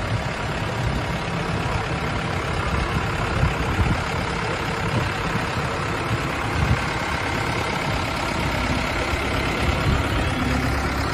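A heavy vehicle's engine running steadily, typical of a truck pulling or carrying a parade float, under a steady wash of street noise.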